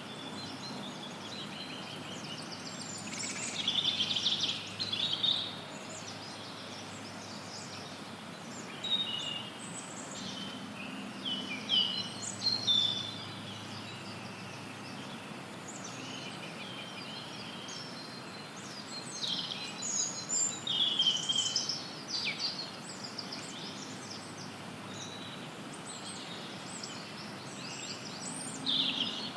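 Wild songbirds singing and chirping in scattered bursts of high, quick phrases, over a steady hiss of added white noise.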